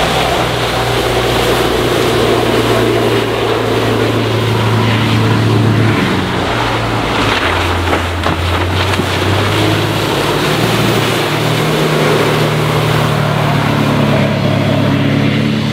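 Yanmar 240 hp diesel stern drive of a Chaparral 235 SSi sports cuddy running at speed through turns, its engine note dropping partway through and climbing again later, over the rush of water off the hull.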